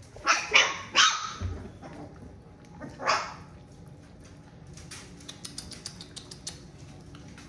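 Dog barking: three quick, sharp barks in the first second and another about three seconds in.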